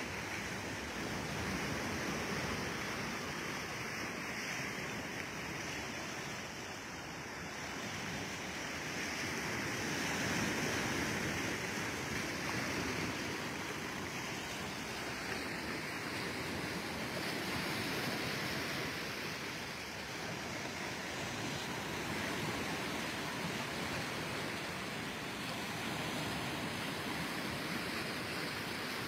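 Sea surf washing onto a stony shore: a steady rush of water that swells and eases every several seconds as the waves come in.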